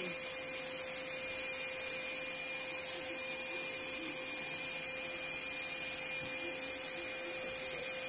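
Wap GTW10 wet-and-dry vacuum cleaner running as a blower: a steady motor whine over rushing air from the hose, holding an even pitch and level throughout.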